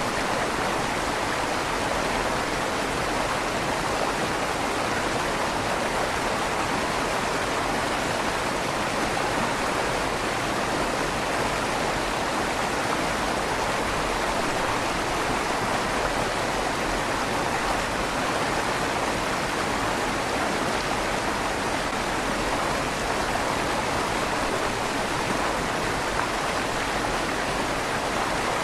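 River water rushing steadily through a stone bridge's tunnel, with a slight echo off the stone walls.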